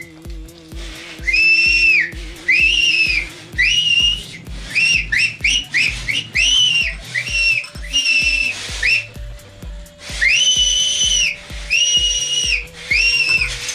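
Shrill whistle blasts used to provoke a Hallikar stud bull, repeated many times in quick runs, each blast from a fraction of a second to about a second long. A steady low beat runs underneath.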